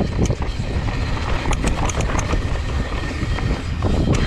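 Mountain bike rolling down a dry, loose dirt trail: tyres running over dirt and stones with the bike rattling, wind buffeting the microphone, and a few sharp clicks about halfway through and near the end.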